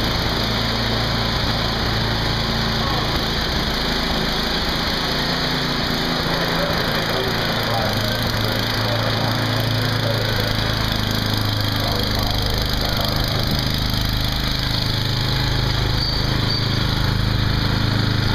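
An engine running at a steady drone under a loud, even rushing noise that does not let up.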